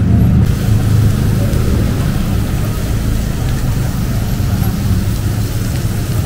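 Steady low rumble of road traffic, with engines running.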